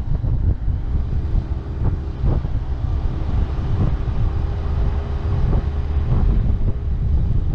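Wind buffeting the camera microphone while riding a Yamaha Street Rally scooter, a heavy steady rumble, with the scooter's engine running at a steady cruise underneath.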